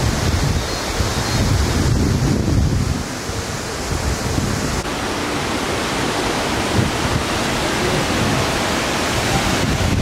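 Steady rushing noise with gusty wind buffeting on the microphone, strongest in the low end and surging unevenly.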